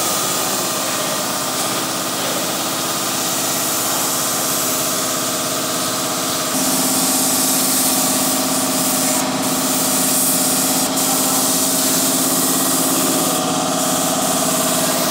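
Air compressor for a paint spray gun running steadily, a hum with a strong air hiss over it; the hum steps up a little about six and a half seconds in.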